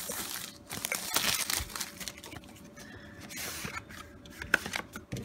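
Plastic shrink-wrap crinkling and tearing as it is pulled off a cardboard card box, followed by cardboard rustling and a sharp tap near the end.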